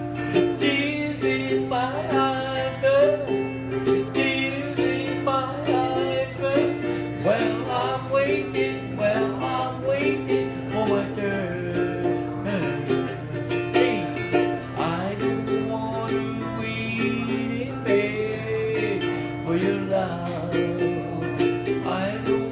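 Ukulele played in a steady rhythm, with a man singing a local Hawaiian song.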